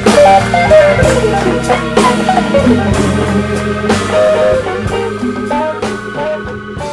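Closing bars of a blues song recording: a guitar playing single-note lines over bass and drums, growing steadily quieter as the track fades out.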